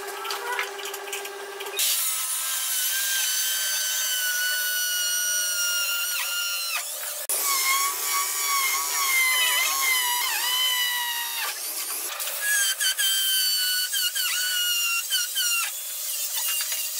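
Cordless drill boring holes into a pine board. Its motor whine sags in pitch each time the bit bites and bogs in the wood, over three long runs of drilling with short breaks between them.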